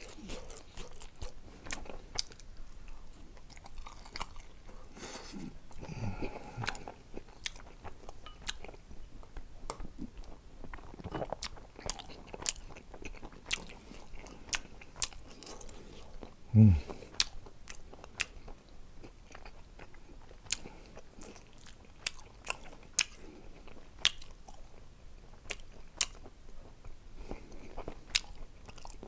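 Close-up chewing and lip-smacking of a person eating gochujang-seasoned dried shredded squid with rice, with frequent sharp mouth clicks. One louder low thump a little past halfway.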